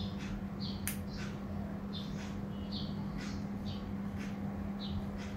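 A small bird chirping, short high chirps about twice a second, over a steady low hum.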